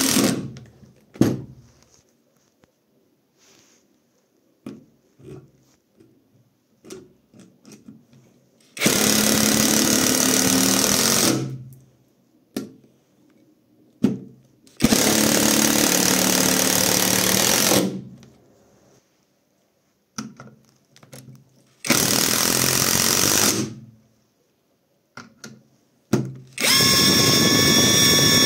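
Catpower 4226 cordless impact wrench driving long screws into a pine stump: four runs of two to three seconds each, with small clicks and knocks of handling in the gaps. In the last run the tool gives a steady high-pitched whine.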